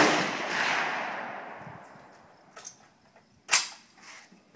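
Rifle shot echoing and rolling away, fading over about two seconds. A second sharp report comes about three and a half seconds in, with a few small clicks around it.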